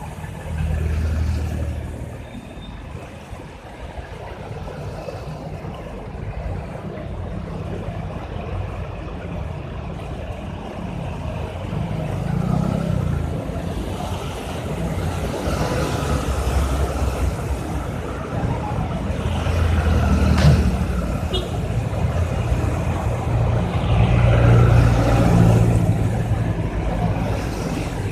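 Street traffic: motor vehicle engines running and passing one after another, the rumble swelling and fading, with a single sharp knock about twenty seconds in.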